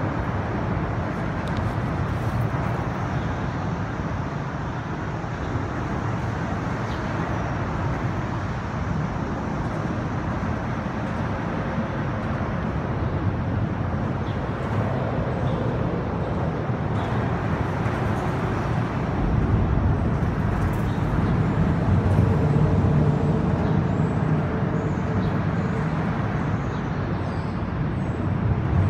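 Steady road-traffic rumble from the elevated highway overhead, swelling louder for a few seconds about two-thirds of the way in.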